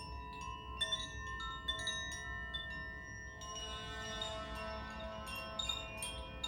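Koshi and Zaphir hanging chimes tuned to A minor, swayed so their inner striker hits the rods again and again, many clear ringing tones overlapping and sustaining. The strikes come thicker from about halfway through.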